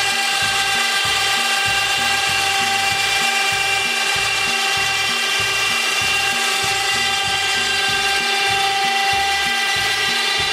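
Mower lift's motor running steadily as the lift lowers: a steady whine over a regular low mechanical chatter.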